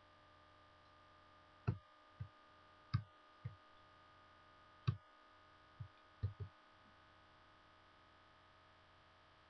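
Computer mouse button clicking, about eight sharp clicks mostly in press-and-release pairs between about two and six and a half seconds in, as controls are grabbed and dragged. Under the clicks is a steady electrical hum.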